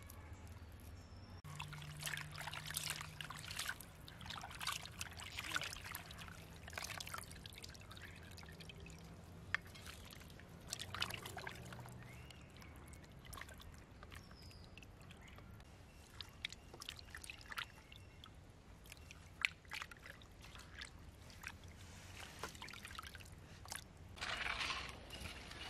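Water sloshing and trickling as hands rub and rinse small fish in a basin, in irregular bouts with sharp drips and splashes.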